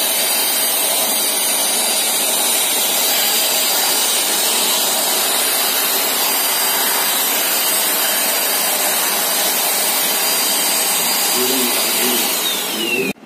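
Vacuum cleaner running steadily, its nozzle drawing up clipped fur from the table. It cuts off abruptly near the end, with a falling whine just before.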